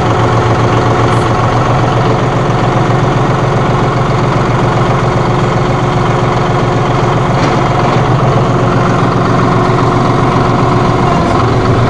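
John Deere 5045E tractor's 2.9-litre three-cylinder diesel engine running steadily, heard from the operator's seat.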